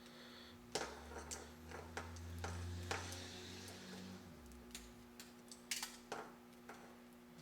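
Small scattered clicks and ticks of wires and hand tools being handled, about five distinct ones, over a faint steady hum, with a low hum swelling from about one second in and fading out before five seconds.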